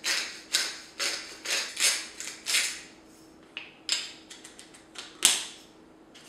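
Hand spice grinder twisted over a bowl, grinding in a run of gritty crunches about two a second, then a few fainter ones, and a single sharp click about five seconds in.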